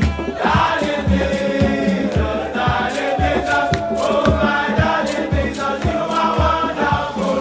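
Background music: a choir-like vocal song over a steady beat.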